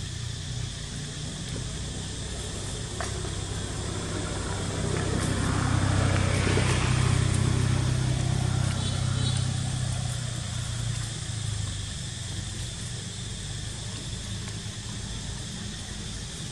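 Low engine hum of a passing motor vehicle, growing louder to a peak about six to eight seconds in and then fading away.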